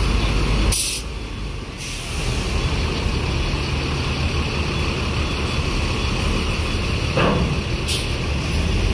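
Heavy diesel buses and trucks running, with a short air-brake hiss about a second in and another near the end.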